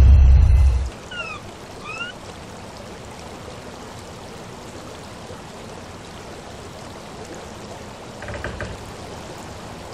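A deep boom fading out in the first second, then steady rushing water ambience. Two short chirps come about a second apart early on, and a soft thump comes near the end.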